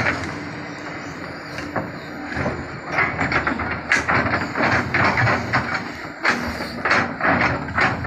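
Tracked hydraulic excavator running, its engine a steady low drone under irregular clanks and knocks as the arm and bucket work.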